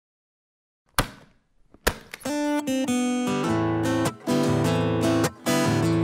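Silence, then two sharp knocks about a second apart, then an acoustic guitar: a few single picked notes, then strummed chords in short phrases with brief stops between them, the instrumental intro of a song.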